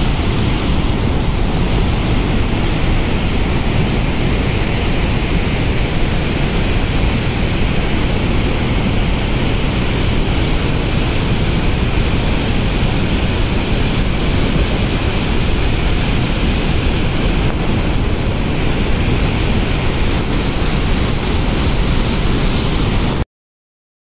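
Heavy floodwater rushing through the open spillway gates of a dam: a loud, steady roar of falling water and spray, with most of its energy low down. It stops suddenly near the end.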